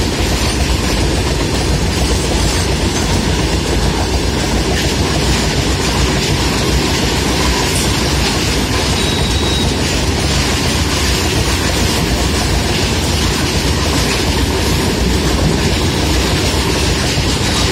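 Long rake of Indian Railways open freight wagons rolling past at speed: a loud, steady rumble of steel wheels on the rails.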